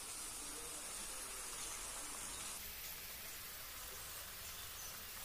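Faint, steady sizzle of tortilla pieces frying in oil.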